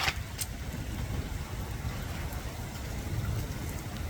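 Heavy rain falling, with a steady low rumble and two sharp taps right at the start.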